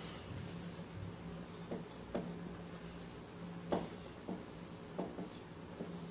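Marker writing on a whiteboard: a series of short, separate faint squeaks and scratches as the pen strokes are drawn.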